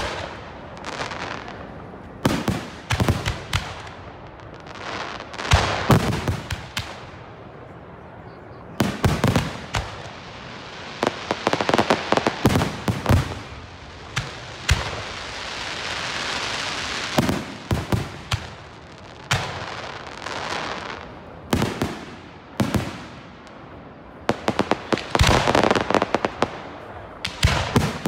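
Aerial fireworks shells bursting at close range, loud bangs in quick irregular succession, some in rapid clusters. Through the middle stretch a long steady hiss runs under the bangs.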